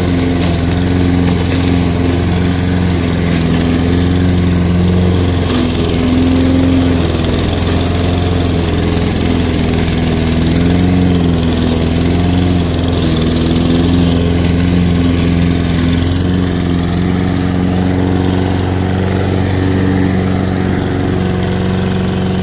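Toro 21321 mower's Briggs & Stratton 140cc single-cylinder engine running steadily while the mower cuts through deep, tall grass. Its pitch wavers slightly now and then.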